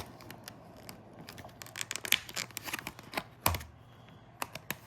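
Irregular clicks, taps and scratches of a model plane's packaging being handled and pried open by hand, with one louder knock about three and a half seconds in.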